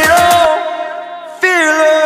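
Background music: a song whose steady drum beat stops about half a second in, and a wavering melody line comes in near the middle.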